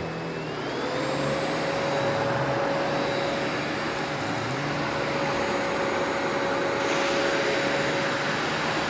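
Sebo Felix upright vacuum cleaner running: its motor whine rises in pitch within the first second as it is switched to high speed, then runs steadily with a rushing hum as it is pushed over a sandy rug.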